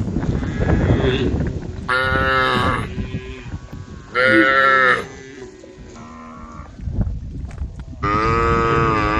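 Cows mooing, one after another: a call about two seconds in, another about four seconds in, a fainter lower one after that, and a long moo starting near the end.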